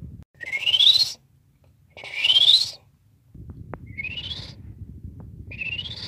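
Human mouth imitation of a western chorus frog call, made as a wet whistle with the uvula rattling: four rising, trilled creaks, each under a second long, the first two loudest.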